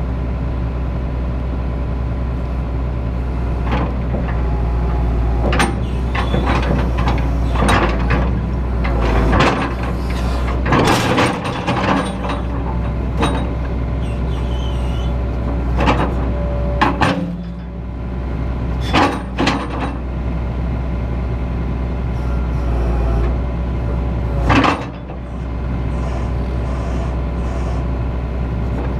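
Excavator engine running steadily, with about ten separate clunks and knocks scattered through. The level dips briefly twice in the second half.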